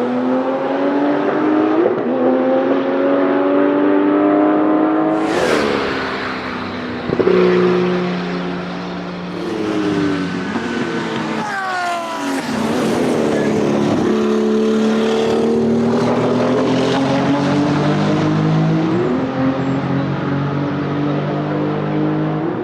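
Porsche 935 K3's twin-turbo 3.2-litre flat-six race engine at full throttle, its pitch rising and dropping back at each upshift. There is a sharp crack about five seconds in. Around twelve seconds in the pitch falls away as the car passes, then the engine holds a steady high note with another gear change near the end.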